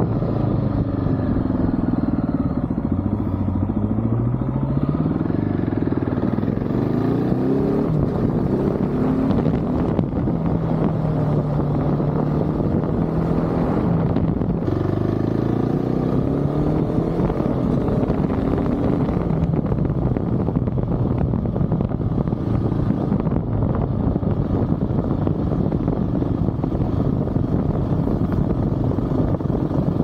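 Motorcycle engine heard from the rider's seat, rising in pitch several times as it accelerates through the gears, then running at a steadier speed. Steady wind and road noise runs under it, and takes over in the second half.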